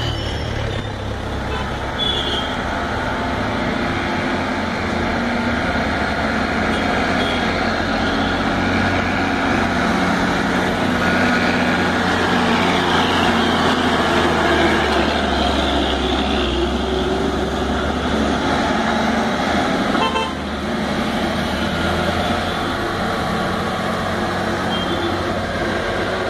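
Heavy goods lorry's diesel engine running under load as it passes close by, growing to its loudest about midway and dropping off briefly near the end, with horn toots from traffic on the bend.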